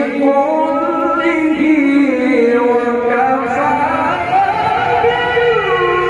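A male qari reciting the Quran in the melodic tilawah style through a microphone: one voice holding long, ornamented notes that slide up and down in pitch without a break.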